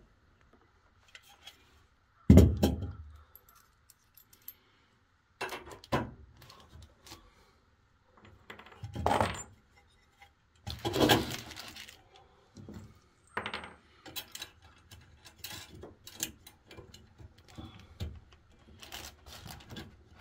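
Metal hardware clinking and clattering as a steel electrical box and conduit are handled and fitted, with a heavy knock about two seconds in and several lighter clatters after it.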